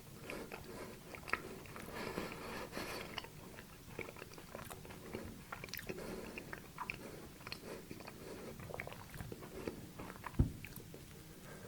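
Close-up chewing of a dessert, with many small crisp clicks and crunches. There is one louder thud about ten seconds in.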